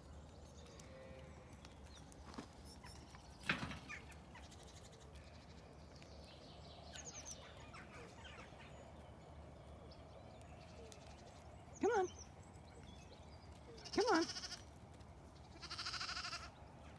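Zwartbles lambs bleating: two short bleats about two seconds apart, then a longer, rougher call near the end.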